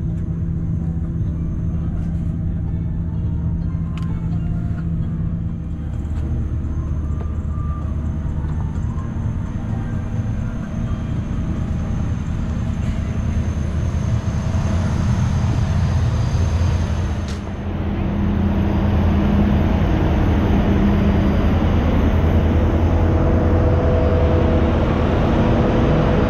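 Steady droning hum inside a parked Boeing 787-10 airliner's cabin, from its air-conditioning and ventilation. About two-thirds of the way through it gives way suddenly to a louder, steady drone of airport apron machinery outside the aircraft.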